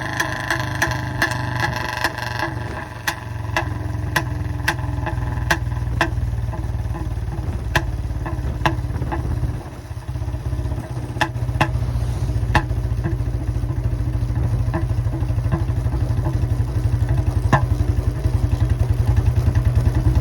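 Royal Enfield Bullet Classic 350's single-cylinder engine running loud through a long narrow-mouth 'long Punjab' exhaust, a steady low beat with sharp pops scattered through. It dips briefly about halfway and grows louder toward the end.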